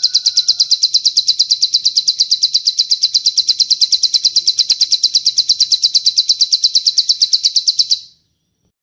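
Long 'cililin' bird trill: one unbroken run of rapid, high chipping notes, about ten a second, that stops abruptly about eight seconds in. A faint steady whistle runs under the first second.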